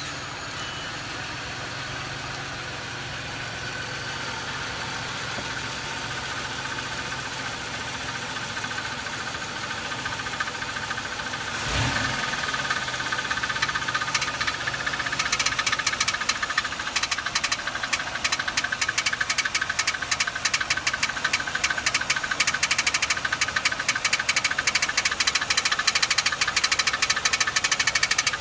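A running engine with a loud, rapid ticking. A brief surge about halfway through is followed by the ticking growing sharper and louder toward the end.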